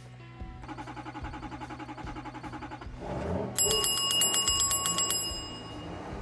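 A bell-like ringing, struck rapidly over and over for about a second and a half about halfway through, over a steady background of music.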